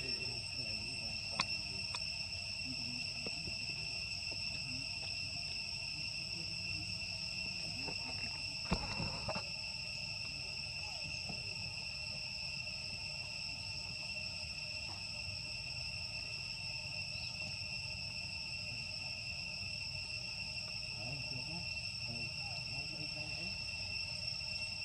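Steady, high-pitched drone of insects, unbroken throughout, over a low rumble, with two short clicks, the louder one about nine seconds in.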